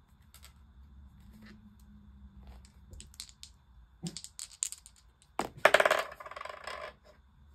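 Two small dice rattled in a hand, then thrown onto a desk, clattering and rolling for about a second and a half near the end.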